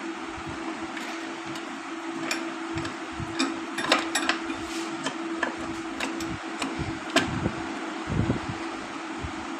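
Steady hum of a fan running, with scattered sharp metal clicks and knocks of tools and clutch parts being handled; the loudest knocks come about four seconds in and again about seven seconds in.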